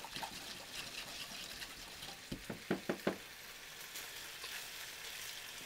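Faint sizzle of meat browning in a frying pan on very low heat, with chopsticks stirring in a glass measuring jug of sauce. A quick run of four short low-pitched blips comes about two and a half to three seconds in.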